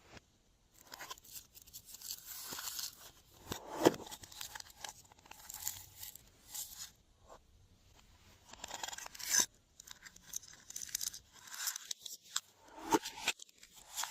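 Glossy slime being worked by hand: irregular sticky crackles and clicks as it is pressed, stretched and pulled apart, with short pauses between handfuls.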